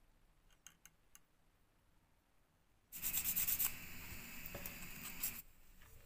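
A few faint clicks, then about three seconds in, a couple of seconds of scratchy rubbing with fast strokes at the start, as a small dark abrasive pad is worked by hand against a handmade glitter-coated lure body.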